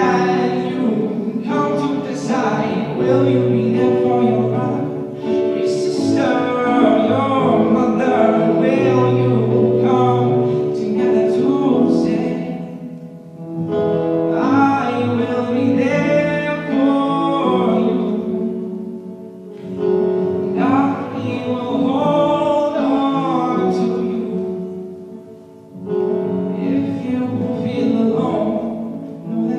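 A song: a voice singing a melody over instrumental accompaniment, with short dips between phrases about 13, 19 and 25 seconds in.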